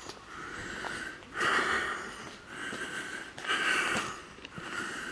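Heavy breathing close to the microphone from a person out of breath after climbing a steep hill: breathy puffs about once a second, the strongest breaths out about two seconds apart.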